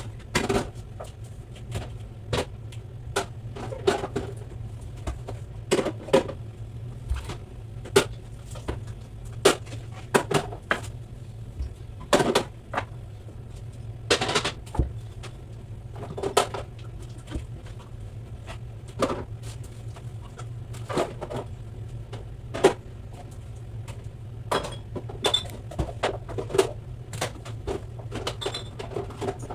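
Irregular knocks and clicks of household items being handled while a refrigerator is cleaned, some sharper and louder, over a steady low hum.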